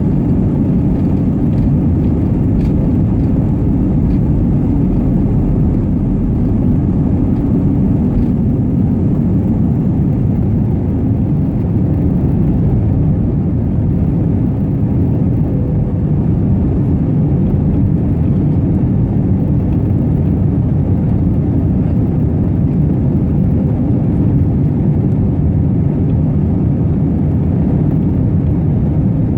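Steady, loud low rumble of jet engines and rushing air heard inside the cabin of an Airbus A321 airliner.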